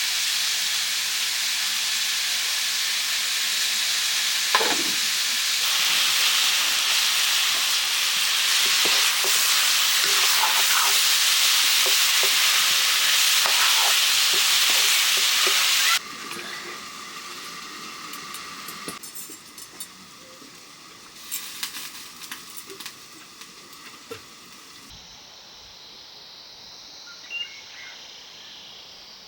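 Food sizzling as it fries in a hot pan, with light taps and scrapes of stirring. About sixteen seconds in the sizzle cuts off suddenly, leaving a much quieter background with a few light knocks.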